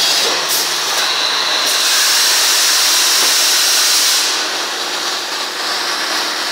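Plastic thermoforming machine with trim press running, giving a steady loud hiss that swells for about two seconds midway, then eases.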